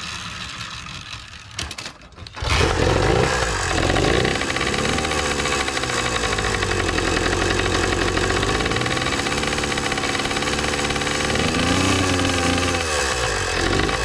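YD100 two-stroke engine being started after a repair: a couple of seconds of cranking noise, then it catches about two and a half seconds in. It runs with a few rises and falls in revs.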